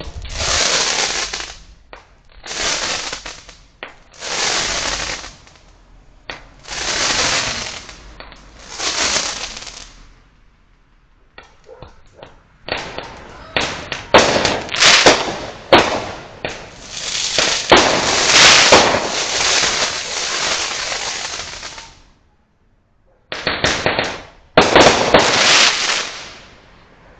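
Fireworks going off in a street: five separate bursts, each about a second and a half long, swelling and dying away, then about ten seconds of dense crackling and sharp popping reports, then two more bursts near the end.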